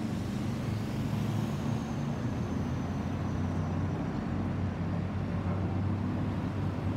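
Airbus A320-216 jet airliner with CFM56 turbofan engines passing overhead: a steady low jet roar, with a faint high whine that slowly falls in pitch.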